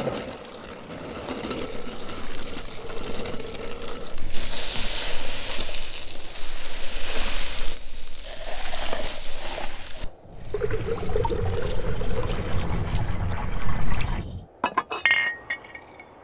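Ice being shaved and handled: a block of ice shaved in an ice-shaving machine with a crunching, scraping sound, then shaved ice packed into a glass with glassy clinks. A low rumbling stretch follows, and it ends in a few sharp clicks.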